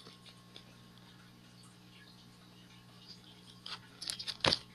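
Quiet room with a low steady hum; about four seconds in, a quick cluster of rustles and knocks as trading cards and the phone are handled close to the microphone, loudest just before the end.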